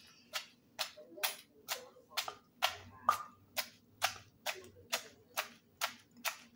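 Wooden pestle pounding string beans in a clay mortar, a steady beat of about two sharp knocks a second, bruising the beans for a pounded string bean salad.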